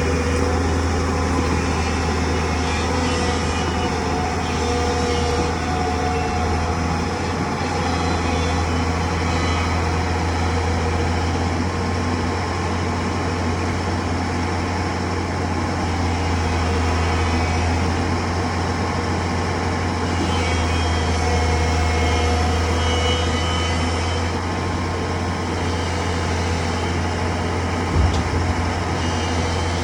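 Hitachi excavator's diesel engine running steadily, with a single sharp knock near the end.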